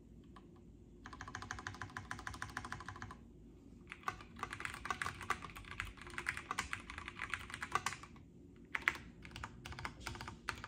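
Typing on an OTD 356N MKII mechanical keyboard fitted with vintage Cherry MX Brown tactile switches, a polycarbonate half plate and POM keycaps. A fast run of keystrokes comes about a second in, then a short pause, then a longer burst of typing, then a few separate key presses near the end.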